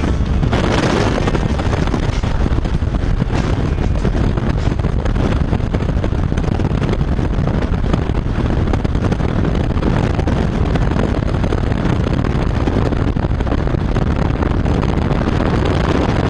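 Loud, steady rush of slipstream and engine noise at the open door of a skydiving plane in flight, with wind buffeting the microphone.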